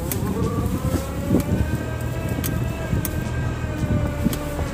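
Maruti Suzuki Alto 800's small three-cylinder petrol engine running while the car creeps in reverse, heard from inside the cabin. A steady whine that is typical of a reverse gear rises as the car sets off and then holds. A few sharp clicks and knocks come over the rough ground.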